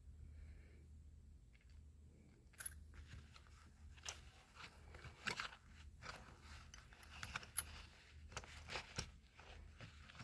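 Small gear being handled in a pouch: faint scattered clicks, taps and rustles over a low steady hum.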